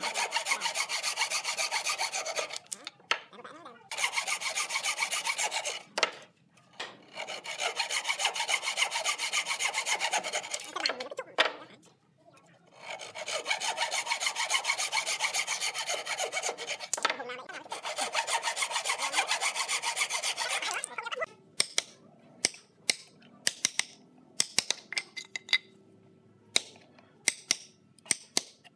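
Wooden frame saw (bow saw) cutting tenon cheeks in a wooden board with quick, steady strokes, in four long runs broken by short pauses. About 21 seconds in the sawing stops and gives way to scattered sharp taps and clicks of a chisel being worked into the wood.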